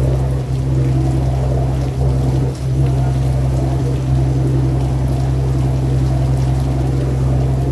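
Riverboat engine running steadily with a low, even drone, over a constant wash of water noise.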